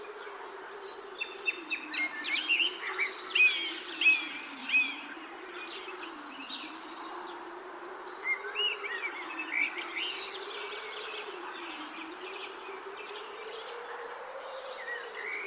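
Outdoor nature ambience: birds chirping in short calls, busiest in the first few seconds and again midway, over a steady high insect drone and a low buzz that slowly rises and falls in pitch.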